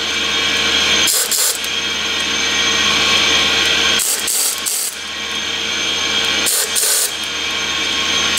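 Hand ratchet cranking jacking bolts on threaded rod in three short bursts, working a tight seal housing off a rotary screw compressor's air end. Under it runs a steady drone from a portable air compressor and air receiver.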